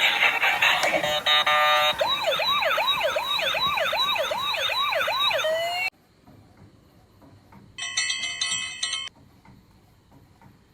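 Electronic toy siren sound effect: a fast yelping wail rising and falling about twice a second, cutting off suddenly about six seconds in. It follows a short run of beeps, and a brief electronic tone about a second long sounds near the end.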